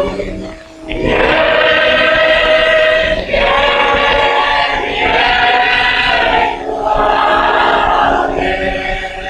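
Church congregation singing a slow hymn in long, held phrases, with short breaks for breath between them.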